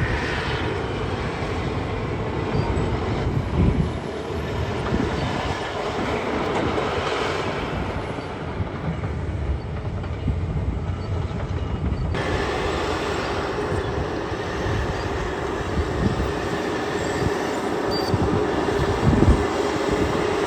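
Caterpillar bulldozer working dirt: diesel engine running under load with the steel tracks clanking, a steady heavy mechanical noise. The sound shifts abruptly about twelve seconds in.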